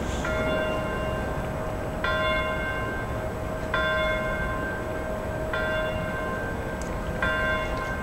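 A large bell rung in slow, even strokes, about one every two seconds, five strikes here, each ringing on into the next with a lingering low hum. A steady low city-harbour rumble sits under it.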